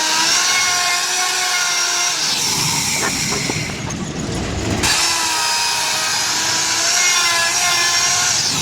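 Handheld electric rotary carving tool running at a high steady whine while cutting a decorative design into wood. From about two and a half to five seconds in the whine fades under a coarser, lower grinding of the bit biting into the wood, then returns.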